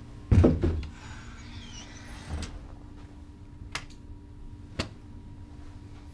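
A blue plastic crate set down on a table with a loud thud and a short rattle, then a softer thud about two seconds later as a door shuts, and two sharp clicks near the end.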